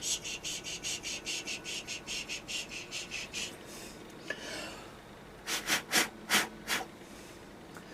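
Emery cloth rubbed quickly back and forth between the ignition breaker points of a 1974 Homelite XL-12 chainsaw, a fast scratchy rasp of about five strokes a second to clean the contact faces. It stops, then comes back near the end as a few louder strokes.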